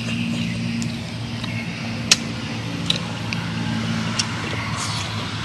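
Eating sounds: short sharp mouth clicks and smacks while chewing, the loudest about two seconds in. Under them runs a steady low motor-like hum.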